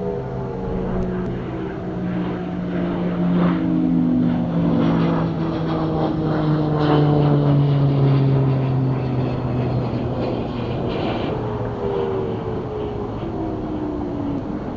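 Several distant outdoor warning sirens, Federal Signal Thunderbolts among them, winding down together. Their overlapping tones fall slowly in pitch, the sign that the alert test is ending.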